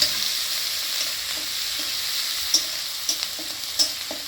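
Onion and garlic paste sizzling in hot oil in a kadai while it is stirred, with a few sharp taps of the spatula against the pan about two and a half to four seconds in.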